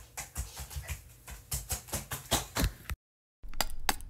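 Faint, irregular clicks and taps over a low hum, broken by a brief complete dropout about three seconds in, after which quicker, more even ticking comes in.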